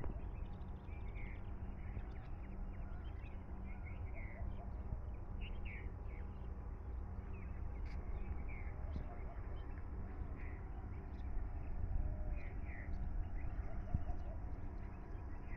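Small birds chirping now and then, short calls that often fall in pitch, over a steady low hum.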